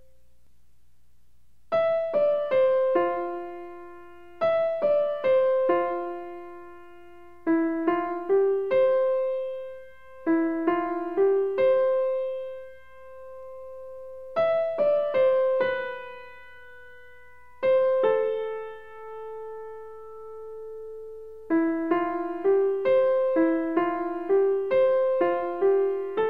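Background piano music: short phrases of a few struck notes that ring and fade, separated by brief pauses, turning into a quicker, steadier run of notes near the end.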